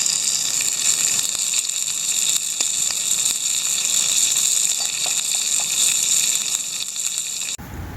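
Pork steak sizzling in a frying pan on a Trangia methylated-spirit stove: a steady hiss with a few faint pops. It cuts off abruptly near the end, giving way to a low rumble.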